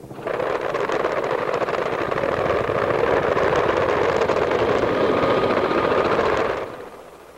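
A sustained burst of very rapid automatic fire from an AH-1 Cobra gunship's turret gun: a loud, dense roar that starts suddenly, runs for about six seconds, then cuts off and fades.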